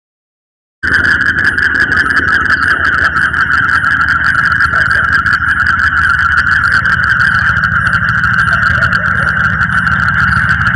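Car engine idling, a steady low rumble under a loud, steady high-pitched whine, cutting in suddenly about a second in.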